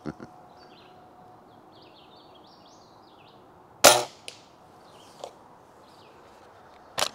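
A single shot from a Daisy Powerline 1101S air rifle about four seconds in: one sharp crack with a short ring after it. Two close sharp clacks come near the end as the rifle is handled.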